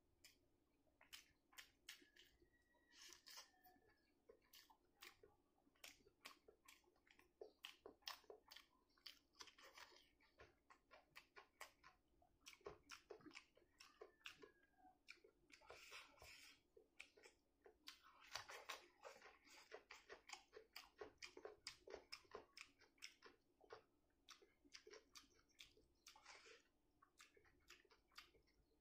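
Chewing and lip-smacking while eating rice and egg curry by hand: quick runs of soft, wet mouth clicks with short pauses between them.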